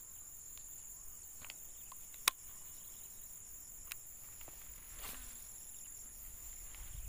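Steady high-pitched drone of insects, with one sharp click a little over two seconds in and a few fainter ticks.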